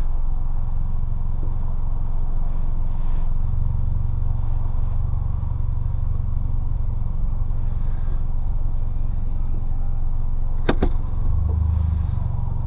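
A 2005 Chevrolet Cobalt's engine and custom exhaust running at low speed, heard from inside the cabin as a steady low rumble that deepens a few seconds in and again near the end as the car moves off. A short clicking rattle comes just before the end.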